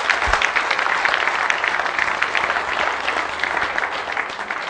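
Audience applauding, many hands clapping at once, starting to die down near the end.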